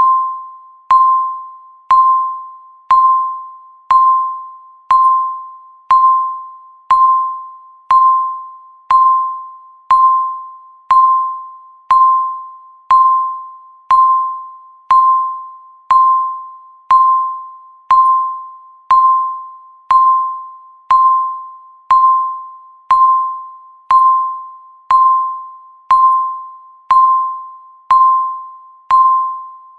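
Countdown timer's electronic tick sound: one short, clear beep-like tone each second, struck sharply and fading away before the next, in a steady even rhythm.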